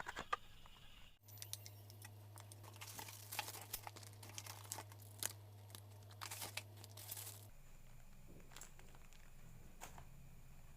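Faint crinkling and crackling handling noises, irregular clicks over a steady low hum that starts suddenly about a second in and stops about two-thirds of the way through.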